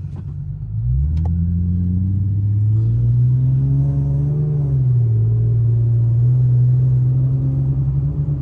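Car engine and exhaust with an added resonator, accelerating hard. The engine note climbs about a second in, drops once around five seconds in, then holds steady before easing off at the end. The exhaust tone is meant to be deeper, with less drone and rasp.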